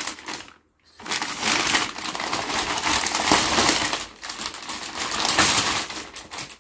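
Plastic mailer bags crinkling and rustling as they are handled and pulled about. There is a short pause near the start, then continuous crinkling.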